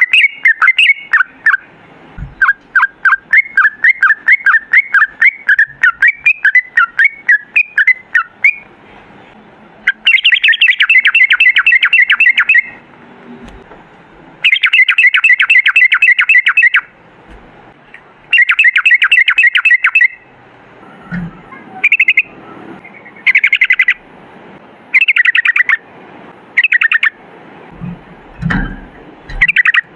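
Yellow-vented bulbul singing: a run of quick bubbling notes, then long rapid rattling trills of about two seconds each, the rolled 'ropel' song, followed by shorter trilled phrases.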